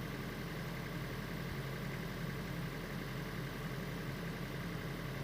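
Steady engine running at idle, an even hum with no change in speed, starting abruptly as the sound comes in.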